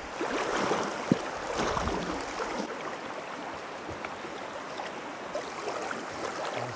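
Shallow, stony river flowing steadily, with louder splashing and rustling in the first two or three seconds and a single sharp click about a second in.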